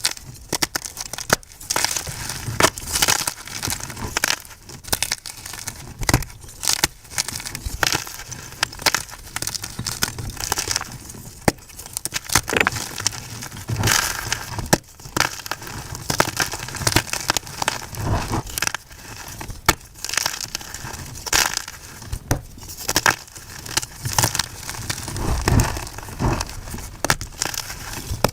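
Blocks of plain white gym chalk being crushed and crumbled, a dense run of crisp, crunchy crackles and snaps.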